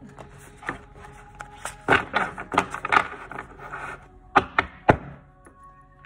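A deck of tarot cards shuffled by hand, with a run of quick card snaps about two seconds in. Near the end come two sharp knocks as the deck is squared against the tabletop.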